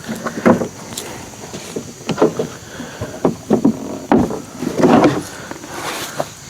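Irregular knocks, clunks and scrapes of hands and tools working on the parts of a portable band sawmill, with a heavier cluster of clunks about five seconds in.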